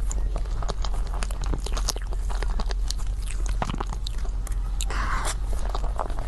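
Close-miked chewing and biting of cake: many short, wet mouth clicks and smacks, with a steady low hum underneath.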